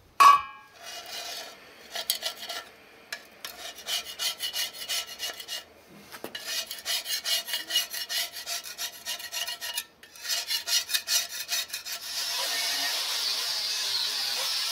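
Rapid back-and-forth rasping strokes of a hand tool on metal, about four a second, in several runs with short pauses between them. Near the end a steady hiss takes over.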